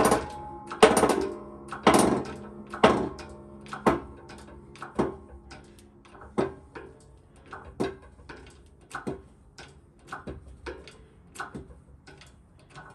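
Shop press forcing a new rear axle bearing onto a 1965 Mustang axle shaft: a series of sharp metallic knocks, each with a short ring, about one a second and growing fainter. These are the normal sounds of the press fit going on.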